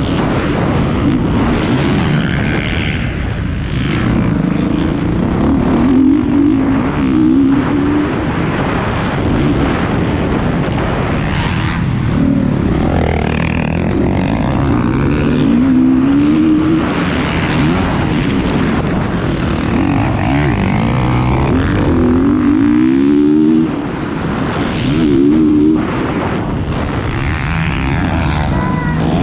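Motocross bike engine heard up close from an onboard camera, revving hard under race throttle, its pitch climbing and dropping over and over as the rider accelerates, shifts and rolls off for corners.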